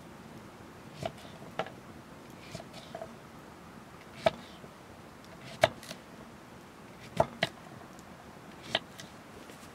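Irregular sharp knocks and clicks of hard objects, about seven over ten seconds, over a faint steady background.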